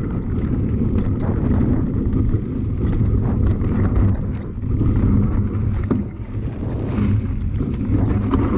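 Wind rushing over the microphone and frequent rattling knocks as a bike rides fast down a rough trail.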